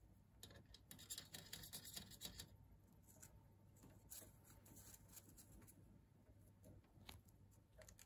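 Faint scratching and clicking from a cockatiel shifting on a wire perch and nibbling at its foot with its beak: a quick run of scratchy clicks in the first couple of seconds, then a few scattered clicks.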